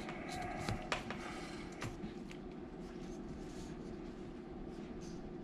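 A few light clicks and taps as a plastic 3D-printed GoPro mount and a soldering iron are handled and repositioned on a desk, mostly in the first two seconds, over a steady low hum.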